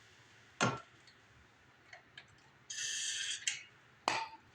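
An aerosol spray can gives a short hiss of about a second, with a sharp click before it and another near the end.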